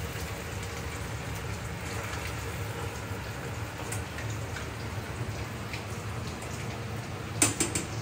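Marinated chicken pieces deep-frying in hot oil: a steady sizzle with scattered small crackles. A short sharp clatter near the end.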